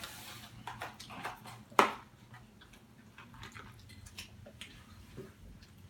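Quiet eating at a table: a brief rustle of food packaging, then one sharp click just under two seconds in and faint scattered small clicks.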